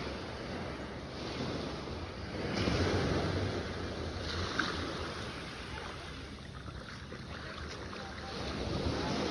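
Wind and surf noise with a low rumble, swelling about two and a half seconds in and again near the end.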